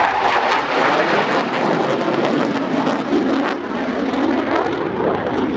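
Panavia Tornado IDS's twin RB199 turbofans in afterburner on a full-power flypast: loud, crackling jet noise.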